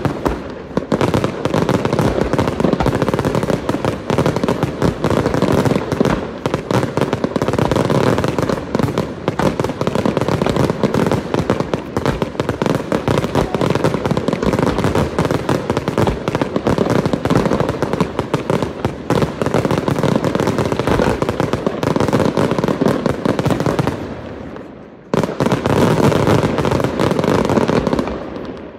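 Fireworks display in full barrage: a dense, continuous run of bangs and crackling from many shells bursting at once. About 24 seconds in it eases briefly, then comes back just as dense for a few seconds before dropping away at the end.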